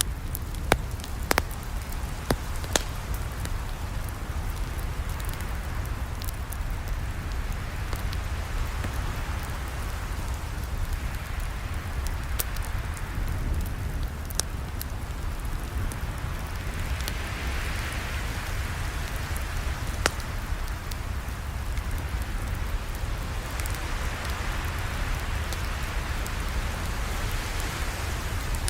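Campfire burning with a steady hiss and low rumble, dotted with occasional sharp pops and crackles from the burning wood.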